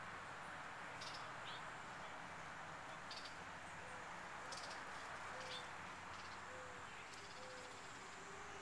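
Faint outdoor ambience: a steady low hiss with short, high chirps scattered throughout, likely small birds, and a few faint low notes in the middle. The emerging butterfly itself makes no audible sound.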